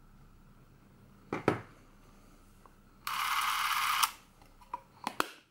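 Super 8 film cartridge knocked into the film compartment of a Revue Super 8 Pocket L camera with two sharp clicks. About three seconds in, the camera gives a steady mechanical whirr that lasts about a second and cuts off sharply. A few light clicks follow as the camera is handled.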